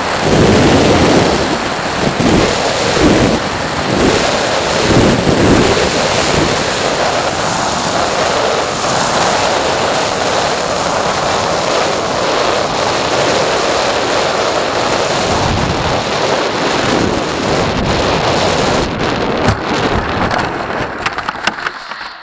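Onboard sound of a radio-controlled jet landing. Wind rushes over the microphone while the jet's engine whine rises and falls during the first few seconds, and then fades under a steady airflow rush. Near the end there is a rattle of knocks and clicks as the model touches down and rolls on the grass.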